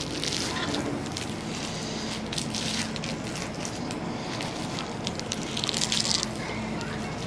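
Biting into a triangle kimbap wrapped in crisp dried seaweed: a crackly crunch just before the end, the loudest sound here, with a few lighter crackles earlier.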